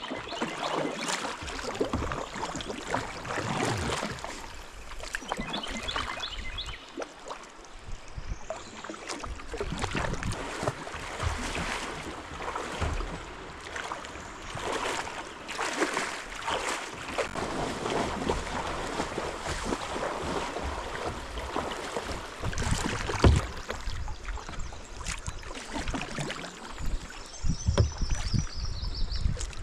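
Kayak paddle strokes splashing in the water. In between, footsteps wade and splash through shallow river water as the kayak is dragged upstream.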